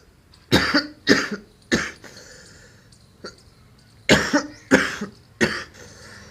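A man coughing in two fits of three harsh coughs each, about half a second apart, from a cough he has been suffering from.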